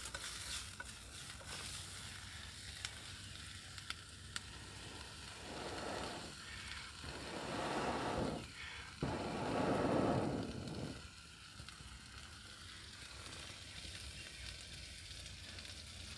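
Three long puffs of air blown through a hollow aluminium arrow shaft used as a fire-blowing tube, the last the longest and loudest, over a steady low hiss with a few faint crackles.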